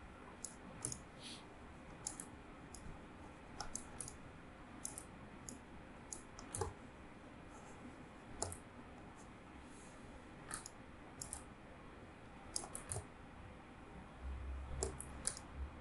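Scattered clicks of a computer mouse, one to two a second and many in quick pairs, over faint room hiss. A brief low rumble comes near the end.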